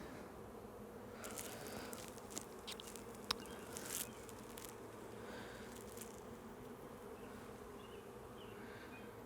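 Honey bees buzzing in an open hive, a steady faint hum. A few short scrapes and clicks come between about one and four and a half seconds in, the sharpest a little after three seconds.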